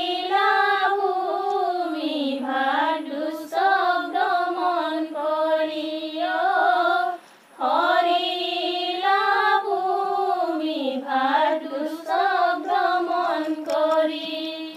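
Women singing an Assamese devotional naam, unaccompanied: a slow, wavering melody drawn out in two long phrases with a brief break about halfway through.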